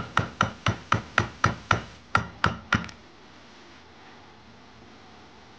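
A quick, evenly spaced run of sharp metallic clicks, about four a second, from a screwdriver being worked against the clutch basket and plates of a two-stroke motocross engine. The clicks stop about three seconds in, leaving only faint room tone.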